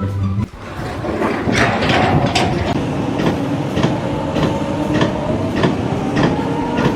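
Loud mechanical rumbling and clatter with irregular sharp clicks and a faint squeal that rises slowly in pitch near the end.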